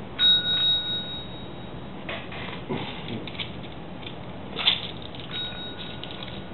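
A metal service bell struck by a cat's paw, a clear ding that rings on for about a second and a half, then struck again more softly about five seconds in. Light clicks and taps come between the two rings, with one sharp click just before the second.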